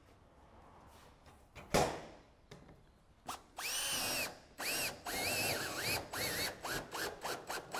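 A single sharp knock about two seconds in, then a cordless drill driving a screw into corrugated steel roof sheeting: one long whine, then a quick run of short bursts, each rising and falling in pitch as the trigger is pulsed to seat the screw.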